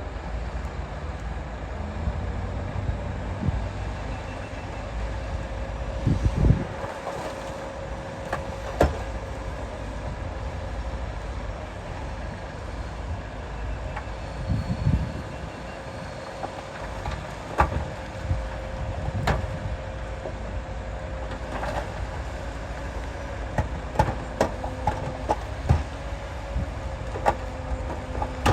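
Heavy diesel earthmoving machinery running steadily, with a held whine and scattered metallic clanks and knocks.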